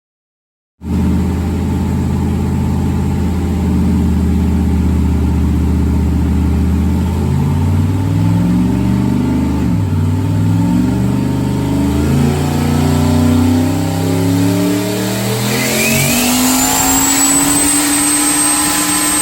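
Turbocharged LS V8 in a Commodore running on a hub dyno. It starts abruptly about a second in, climbs through several gears, then makes a full-boost pull with a rising turbo whistle over the last few seconds. It is run with the side-pipe exhaust.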